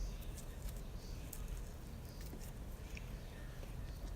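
Slime being squished and poked by hand, giving scattered small clicks and pops over a low steady rumble.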